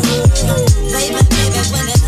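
Background music with a steady beat: deep kick drums that slide down in pitch, about two a second, over held notes and bright percussion.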